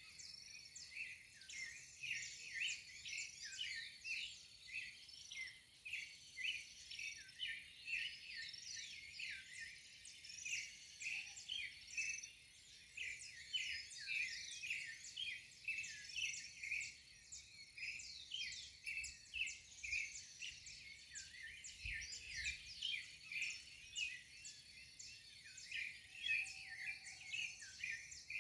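Dawn chorus: many birds chirping and calling at once, a dense stream of short, overlapping high chirps and quick down-slurred notes with no let-up, over a thin steady high tone.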